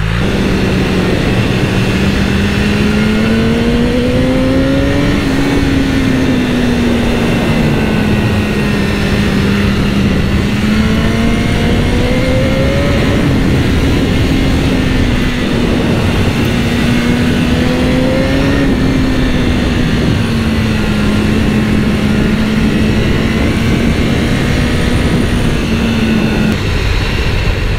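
BMW S1000R inline-four engine under way at steady cruising speed, its note slowly rising and easing back several times as the throttle changes, under heavy wind and road rush on the GoPro microphone.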